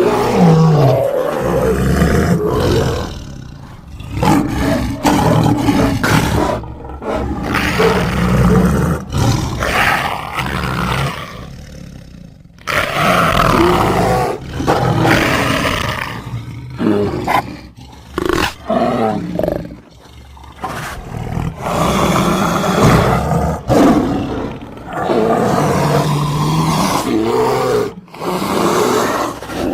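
Creature sound effect made from spliced animal recordings: big-cat and bear roars and snarls, one after another, with abrupt edits between them.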